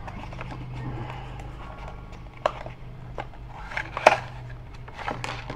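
Cardboard product box being opened and its inner tray slid out: scattered rustles and scrapes, with a sharp click about two and a half seconds in and a louder one about four seconds in.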